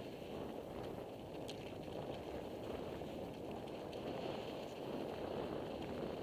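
Wind rushing over a helmet-mounted camera and tyres rolling over a dirt trail as a mountain bike moves along at speed, with scattered small clicks and rattles.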